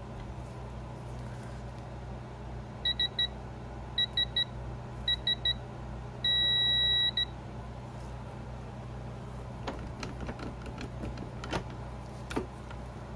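Digital torque adapter beeping three short beeps at a time, three times, then one long steady beep as the countershaft stake nut is pulled up to its set torque of about 125 ft-lb; the long beep is the adapter's signal that the target torque has been reached. A few light metal clicks follow near the end.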